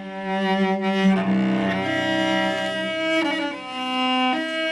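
Solo cello playing a slow folk-song melody with the bow: long sustained notes, the pitch moving to a new note every second or two.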